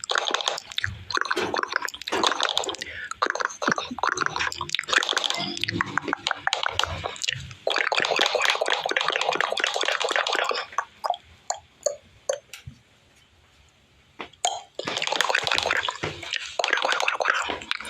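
Wet, gurgling and squelching sounds full of rapid little clicks, in long bursts. It thins to a few separate clicks about eleven seconds in, goes almost quiet for a couple of seconds, then starts again.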